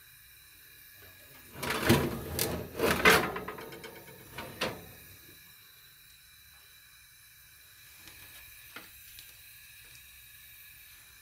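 Metal baking tray sliding over an oven's wire rack, scraping and clattering for about three seconds. A single small click follows near the end.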